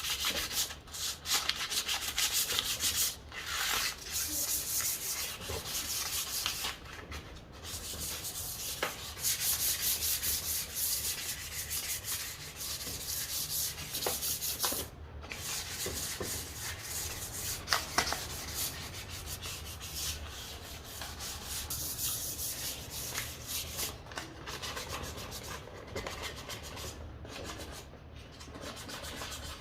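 Sandpaper rubbing over a hardwood fruit bowl of ipê and roxinho, a continuous scratchy hiss made of quick strokes, broken by a few short pauses.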